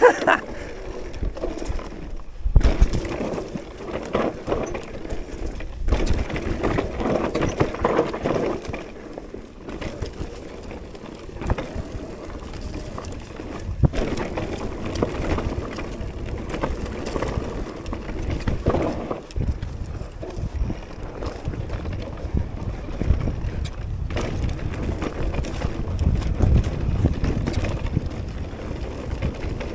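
Mountain bike descending a rough trail: tyres rolling over dirt and roots, with an irregular clatter and knocking of the bike's frame, chain and components over bumps, and a rumble of wind on the microphone.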